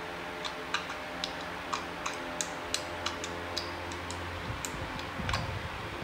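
Small plastic LEGO pieces clicking together: an irregular run of light, sharp clicks over a low steady hum.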